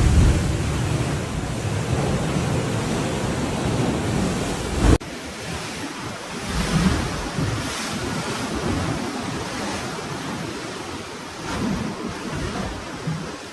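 Sea waves washing with wind buffeting the microphone; about five seconds in it cuts abruptly to a quieter stretch of surf with less wind rumble.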